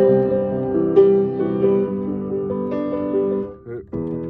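Piano playing a chordal accompaniment pattern, with a new chord struck about once a second and a brief break near the end before the next chord.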